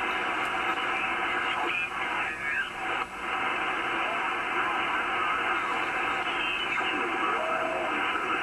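Icom IC-R71E shortwave receiver's speaker audio as it is tuned up through the 20-metre amateur band: a steady hiss of band noise, with brief gliding whistles and garbled snatches of signals as stations are tuned past. Band conditions are poor, so it is mostly noise.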